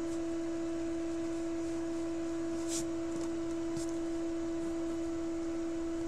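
A steady, unwavering electronic tone of one pitch with a fainter overtone above it. Two faint, brief scratches of a pencil on paper come about three and four seconds in.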